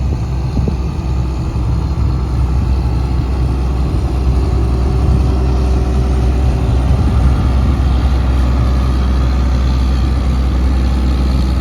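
Cummins diesel engine of an XCMG XE360U hydraulic excavator running steadily with a deep, even drone, growing slightly louder a few seconds in.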